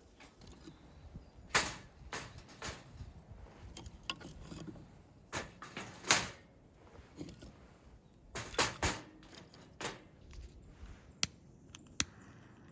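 An irregular series of sharp knocks and clacks of hard objects, about a dozen, with a quick cluster of several a little past the middle.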